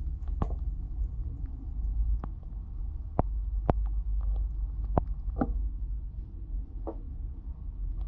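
Dishwasher running, heard from inside the tub: a steady low hum, with about seven sharp clicks or taps scattered through it.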